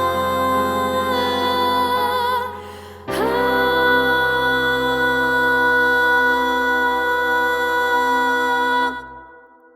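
Closing bars of a slow keyboard ballad: a held chord, a short dip, then a final sustained chord that is released about nine seconds in and fades away.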